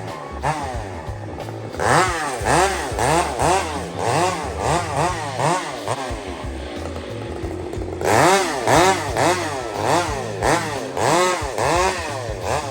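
Chainsaw revved up and down over and over, about twice a second, while cutting, with background music underneath.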